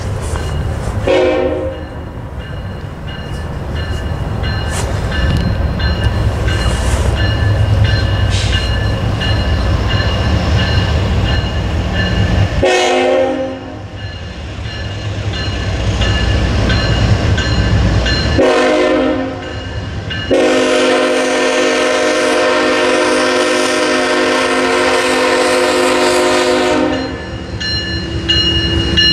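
Kansas City Southern Tier 4 GE diesel locomotive approaching a grade crossing with its engine rumble building. It blows its air horn four times, the last blast held about seven seconds, while a crossing bell rings.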